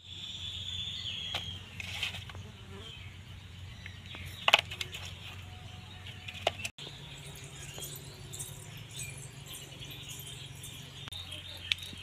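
A few sharp clicks and clinks, the loudest about four and a half seconds in, over a steady outdoor background of birds and insects chirping. A brief drop-out comes about seven seconds in.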